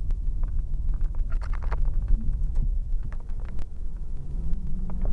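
Strong wind buffeting the microphone as a steady low rumble, with scattered faint clicks and crackles.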